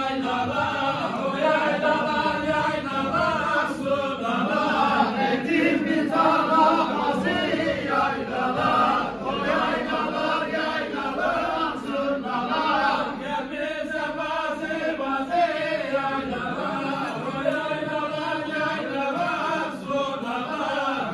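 A group of men singing a folk song together in unison without instruments, as they dance in a line.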